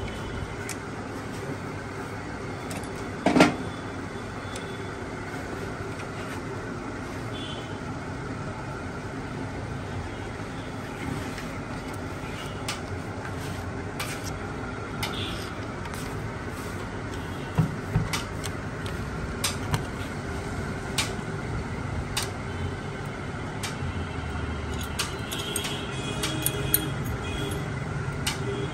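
Intermittent metal clicks and knocks of hand tools and engine parts being handled during a motorcycle engine repair, with one louder knock about three seconds in, over a steady workshop hum.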